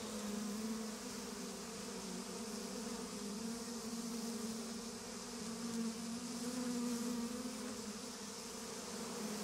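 Steady low buzzing drone whose pitch wavers slightly.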